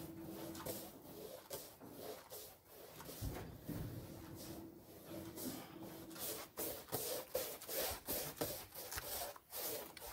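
Paintbrush swishing and scraping against a painted exterior wall in short strokes, which come quicker and more regularly in the second half, about three a second.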